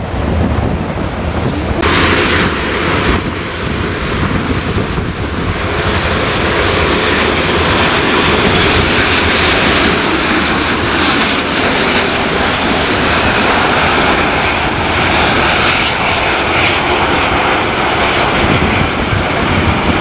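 Boeing 737 jet airliner on final approach, passing low to land: a continuous rushing jet-engine noise that grows louder about a third of the way in as the aircraft comes close, with a faint rising whine high up.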